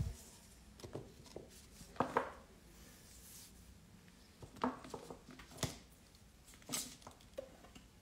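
A gel polish bottle being handled and set down on a table: a few light, scattered clicks and taps of its plastic cap and glass.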